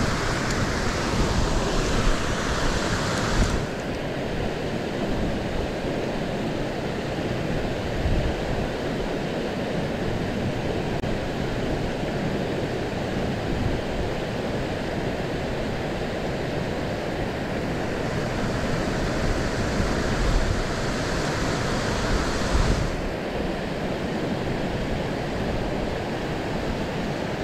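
Water pouring over a low concrete weir, a steady rushing hiss that falls away sharply a few seconds in, builds again, and drops once more near the end, with wind rumbling on the microphone underneath.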